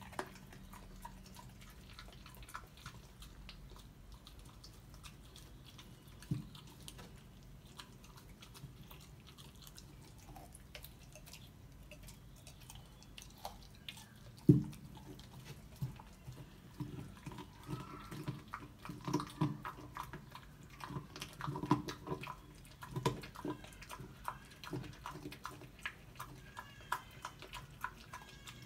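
Bullweiler puppy (bullmastiff–Rottweiler cross) gnawing frozen raw chicken bones, with wet clicks and crunches of its teeth on the bone. There is one loud crack about halfway through, and the crunching comes thicker and faster in the second half.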